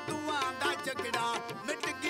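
A man singing a Sufi folk song with gliding, ornamented phrases, accompanied by hand-drum percussion.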